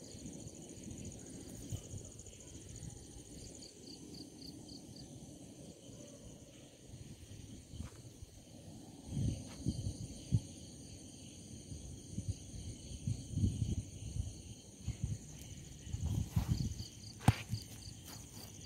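A chorus of night insects chirping: steady high trills with a pulsing chirp. Irregular low thumps rise above it from the middle on, and a sharp click comes near the end.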